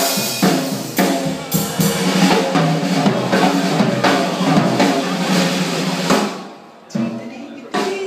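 Live band playing with the drum kit loudest: drum and cymbal hits over sustained notes from other instruments. The playing drops away about six seconds in, followed by two single hits.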